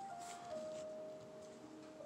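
Background music: a slow, simple melody of long held notes.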